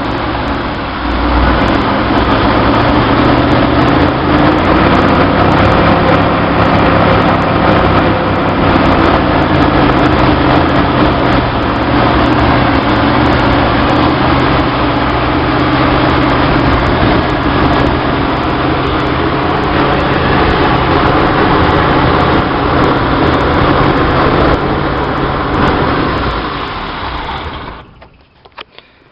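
Chevy 230 inline-six running steadily at a fast idle through a 32/36 Weber two-barrel carburetor, then stopping abruptly near the end. The high idle is most likely due to a vacuum leak at the added carburetor adapter gaskets.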